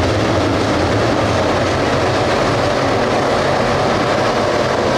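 A pack of dirt late model race cars racing around a dirt oval. Their 602 crate V8 engines blend into one loud, steady drone.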